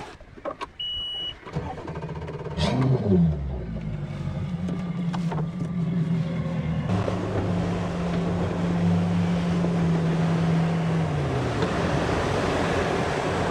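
A short electronic beep, then a boat's outboard motor starts, revs up briefly and settles into a steady run. From about halfway, wind and water rush over the motor as the boat gets under way, and the engine note drops near the end.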